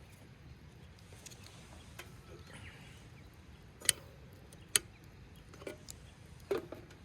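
Camping gear being handled: a few scattered clicks and taps, with two sharp clicks a little under a second apart around the middle and a duller knock near the end.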